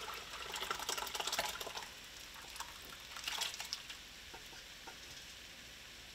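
Fish broth being poured from a stainless steel stockpot through a metal strainer into a pot: a splashing pour for about two seconds, a second shorter splash a little after three seconds, then tapering off as the strainer fills with bones.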